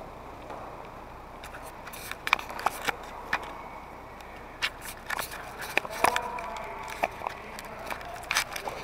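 Scattered sharp clacks and knocks of a hockey game on an indoor sport-court rink: sticks, puck and boards, over the hall's steady hum, with a short pitched sound about six seconds in.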